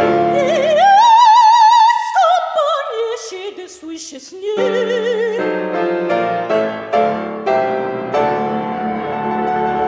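Operatic soprano with grand piano. The voice slides up to a high note held with a strong vibrato, then falls away in a descending line. About five seconds in she ends on a low note over a piano chord, and the piano carries on alone with chords, closing the aria.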